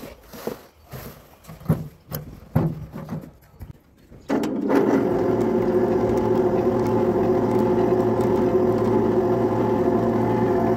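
A mini lift's electric hoist motor starts suddenly about four seconds in and runs steadily with a hum as it winds up a wheelbarrow load of sand hung on chains. Before it starts there are a few scattered knocks and clanks.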